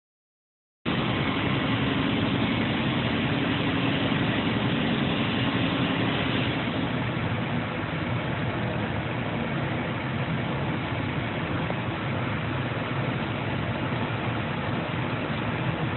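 Steady blowing hiss with a low hum, starting abruptly about a second in: a hot-air plastic welder's blower running.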